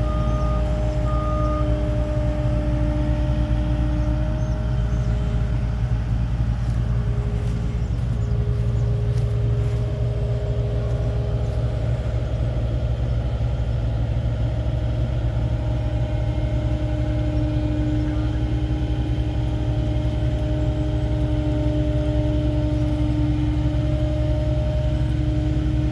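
Heavy machine engine running steadily with a deep hum, its speed shifting slightly a few times.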